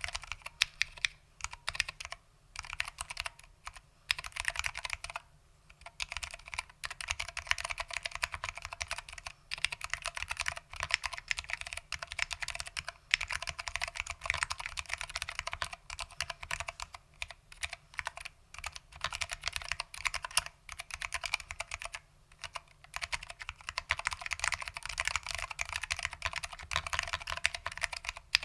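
Continuous fast typing on a custom keyboard with foam-damped SKCM Orange Alps switches and PBT Alps keycaps: a dense run of clicky keystrokes with a few brief pauses.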